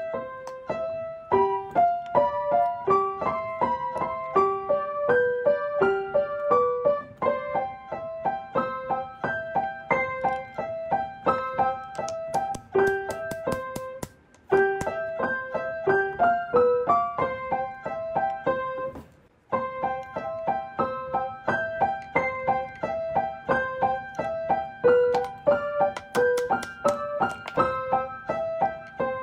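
Background piano music: a light melody of single notes at an even pace, cutting out briefly twice around the middle.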